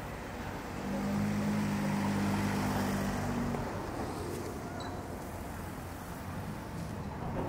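Street traffic: a motor vehicle's low engine hum swells about a second in and fades a few seconds later, over a steady bed of traffic noise.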